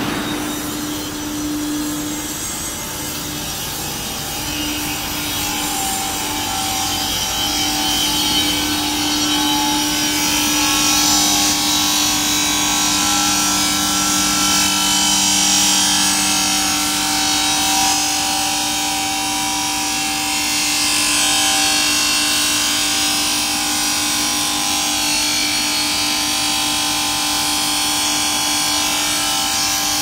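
Circular saw of an artificial stone slab cutting machine running and cutting a slab: a steady loud hiss over a constant motor hum, growing louder over the first ten seconds or so.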